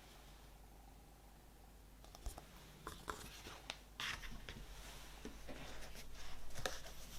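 Vinyl LP packaging being handled by hand: after a quiet start, rustling and sliding of card and paper with sharp clicks and taps, beginning about two seconds in and growing busier toward the end.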